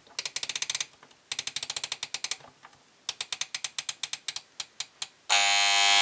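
Vintage Wigo alarm clock's time-setting mechanism ratcheting in three runs of rapid clicks, about nine a second, as the time is stepped forward. A little over five seconds in, the alarm goes off with a loud, steady electric buzz.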